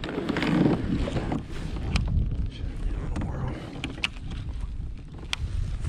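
Wind rumbling on the microphone, with a few sharp clicks and knocks from handling a baitcasting rod and reel in a kayak.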